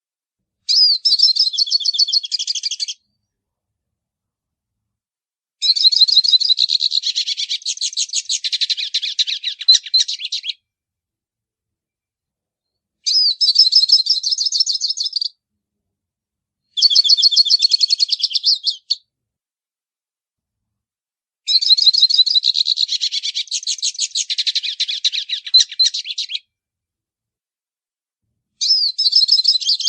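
Hooded siskin (pintassilgo) singing its 'baianinho' song: six long strings of rapid, high twittering notes, each lasting two to five seconds, with silent gaps between them.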